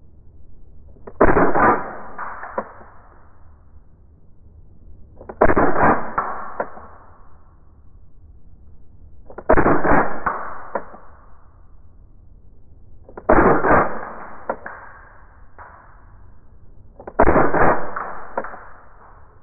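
Stark Arms G17 Gen4 gas blowback airsoft pistol fired five times, single shots about four seconds apart. Each shot is a sharp crack with a quick clack of the slide cycling, fading over about a second. The pistol cycles smoothly on its replacement Tokyo Marui hammer, hammer spring and recoil spring.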